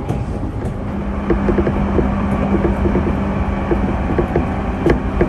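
Electric commuter train running along the track: a steady rumble with a constant hum from about a second in, and scattered light clicks from the wheels on the rails.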